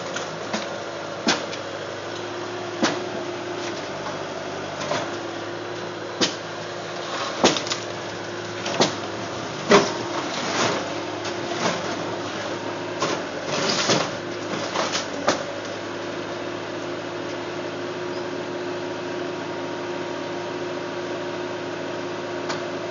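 A series of sharp knocks or bangs, irregular at roughly one every second, over a steady mechanical hum; the knocks stop about fifteen seconds in, leaving only the hum.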